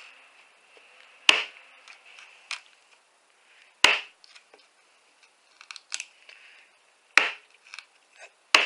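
Ozark Trail Flipper folding knife stabbed point-first into a target four times, each stab a sharp impact with a brief ringing tail and small clicks between them. The chiseled point is getting little penetration.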